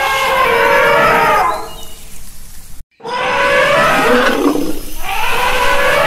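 Elephant trumpeting: long, loud pitched calls. The first call fades out about a second and a half in, the sound cuts out completely for a moment just before the middle, and then new calls start and run on.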